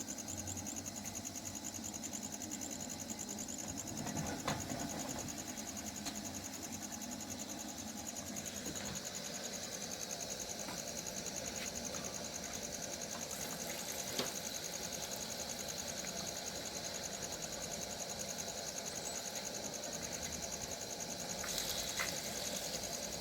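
A stuffed puri deep frying in very hot mustard oil, with a steady sizzle and occasional faint pops. A high, rapidly pulsing insect chirring, likely crickets, runs underneath throughout.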